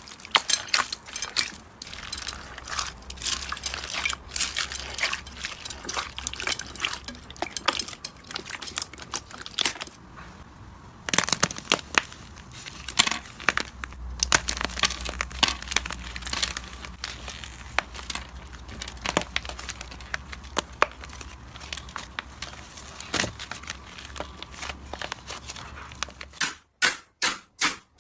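Slime being squished and worked by hand, making a dense run of crackling, crinkly clicks. Near the end it changes to an even series of louder clicks, a few a second.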